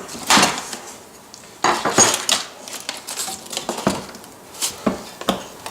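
Metal knife-grinder parts and their packaging being handled: a string of irregular clinks and knocks with short scraping rustles in between.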